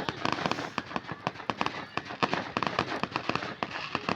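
Fireworks crackling: a dense, irregular run of sharp pops and cracks, many every second.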